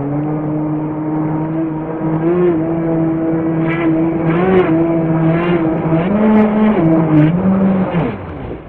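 Deep-vee brushless RC race boat running fast on water: a steady motor drone that wavers slightly in pitch, with repeated hull slaps from about four seconds in, then the pitch falls away near the end as it slows.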